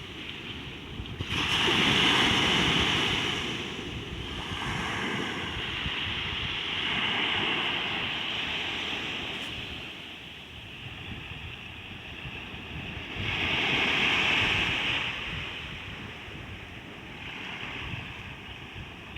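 Sea waves breaking and washing ashore: a steady wash with two louder surges, one about a second in and another about thirteen seconds in.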